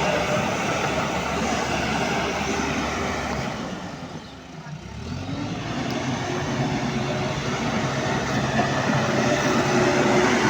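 JCB backhoe loader's diesel engine running steadily while working. Its sound dips for a moment about halfway through, then rises back.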